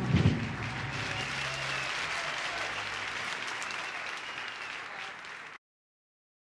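Audience applause, an even clatter of clapping that follows a short low thud at the very start and fades slowly. It cuts off suddenly to dead silence about five and a half seconds in.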